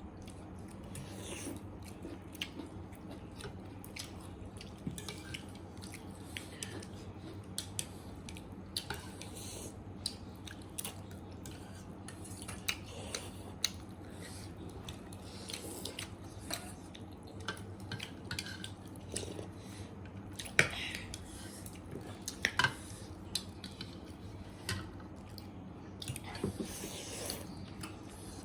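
Close-up eating sounds: a person chewing pork and noodles, with many small, irregular clicks of cutlery against the dishes, over a faint steady hum.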